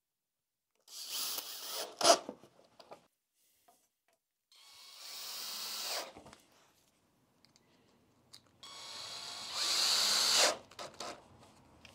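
Cordless drill-driver run in three short bursts, its motor whine rising in pitch within each, as it drives the fixings of a motorcycle tablet mount. A sharp knock right after the first burst is the loudest sound.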